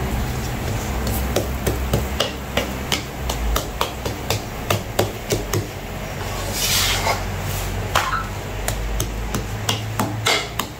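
Wooden dabla tapping and knocking on a paratha roti cooking on an iron tawa: sharp, irregular knocks about two to three a second, over a low steady rumble.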